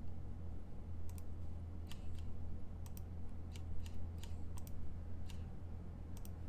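Computer keyboard being typed on: about a dozen sharp keystroke clicks at an irregular pace. A steady low hum runs under them.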